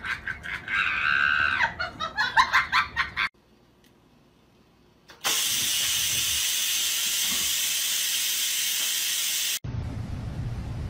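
Electric pressure rice cooker venting steam: a loud, steady hiss lasting about four seconds that cuts off suddenly. Before it, a person laughs for about three seconds.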